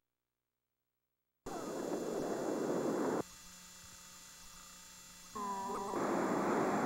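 Blank stretch of camcorder videotape between recordings. It opens with about a second and a half of dead silence, then loud hiss, then a quieter steady hum with a brief wavering tone a little past five seconds in, and hiss again near the end.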